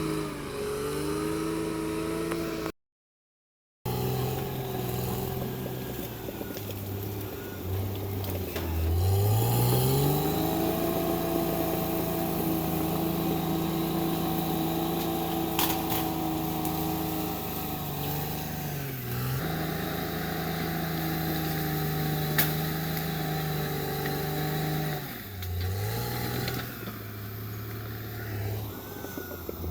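Caterpillar D6R XL bulldozer's diesel engine working under load. It runs at lower revs, then climbs to high revs about a third of the way in and holds there. The revs dip briefly, then drop for a few seconds near the end before climbing again. The sound cuts out completely for about a second near the start.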